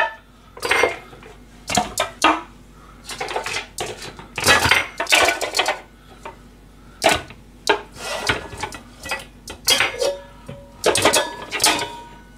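Metal pots, frying pans and a stainless steel bowl clanking against each other as they are stacked upright in a plastic dish drainer: a dozen or so irregular knocks, some ringing briefly.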